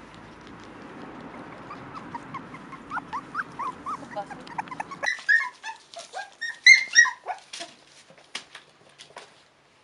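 Cairn terrier puppies whimpering and yipping in short high squeaks. The squeaks get louder and higher after about five seconds, with scattered light clicks among them.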